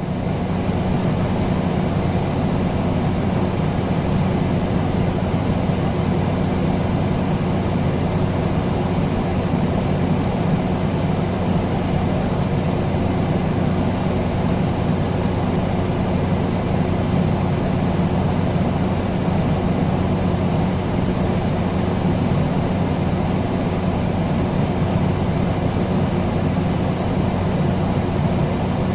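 Air conditioner running steadily: a constant rush of air with a low, even hum underneath.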